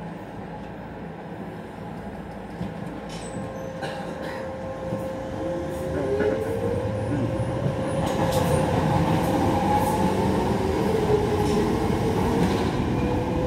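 Docklands Light Railway train heard from on board, pulling away and gathering speed: a steady electric whine with further tones that glide up in pitch, and running noise that grows louder from about six seconds in. Scattered clicks of the wheels over rail joints.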